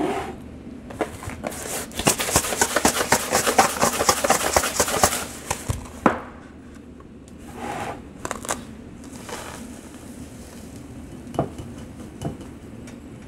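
Kosher salt poured into a glass jar: a dense, rapid rattle of grains lasting about three seconds. After it come a few scattered knocks and clinks of glass jars being moved on a countertop.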